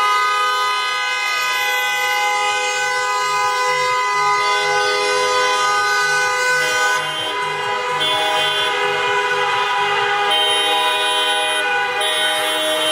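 Car horns of a slow protest car convoy honking continuously as the cars pass, several horns at different pitches sounding at once and overlapping, with individual horns starting and stopping every second or two.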